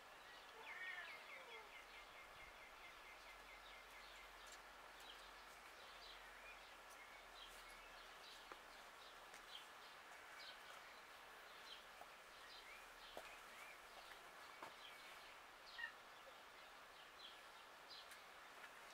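Faint outdoor ambience of small birds chirping, with many short, high chirps scattered throughout.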